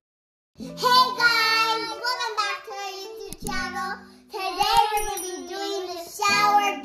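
Sung intro jingle: a high, child-like voice singing a short melody in three phrases, with held notes that bend up and down.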